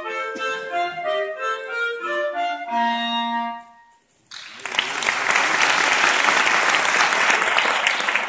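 Two clarinets playing the closing bars of a duet, ending on a held low note. After a brief pause, audience applause starts about halfway through and continues.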